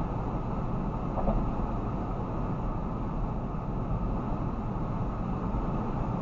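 Steady road and tyre noise with a low engine hum inside a car's cabin while it drives along a highway, with one brief tick about a second in.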